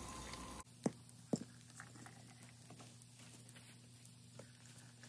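Two sharp clicks of cookware and utensils knocking, a little under a second and about a second and a half in. Then faint light taps over a low steady hum.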